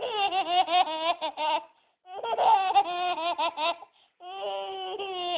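Young child giggling in three bouts of pulsing laughter, each about a second and a half long, with short breaks for breath between them.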